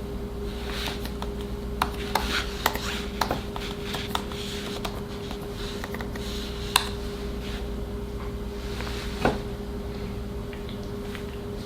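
Hands handling a laptop and its wrapping: scattered clicks and taps with patches of rustling, mostly in the first half, over a steady low hum.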